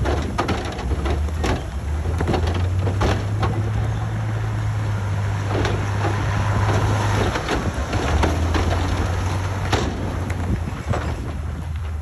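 Heavy earthmoving machinery at work: a diesel engine running steadily under load, with irregular metallic clanks and knocks. The engine note dips briefly a little past the middle, then returns.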